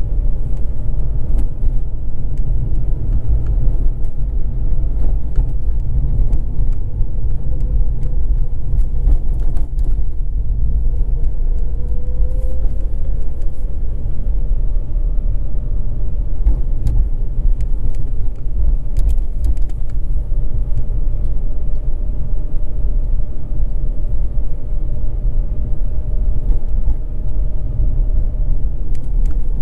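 Mazda RX-8 driving slowly along a street: a steady low rumble of engine and tyres, with a faint engine tone that rises and falls a little as the speed changes.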